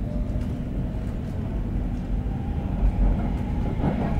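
Inside a Stockholm Metro C30 subway car while it runs: a steady low rumble of wheels on the track, with a faint whine that rises near the end.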